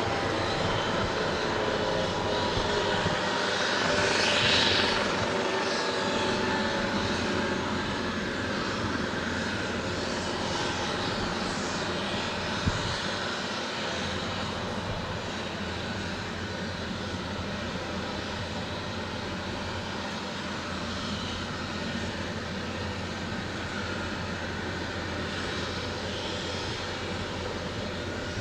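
Airbus EC155B1 helicopter running, its twin turboshaft engines and rotors giving a steady dense roar. It swells briefly about four seconds in, then slowly grows quieter.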